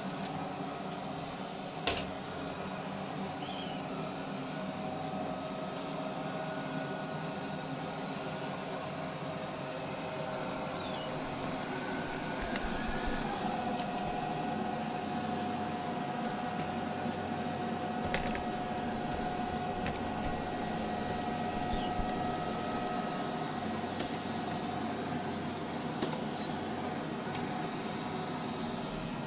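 Vorwerk VR100 (Neato XV11) robot vacuum running in spot-clean mode, picking up dirt: a steady motor and fan hum with a few held tones, broken now and then by short sharp clicks.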